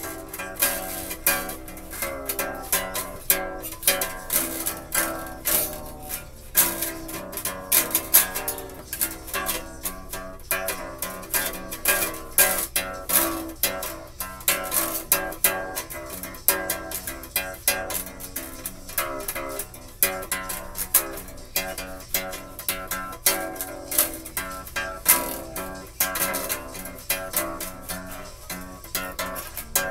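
Ukulele played in a steady rhythm, its chords changing as it goes.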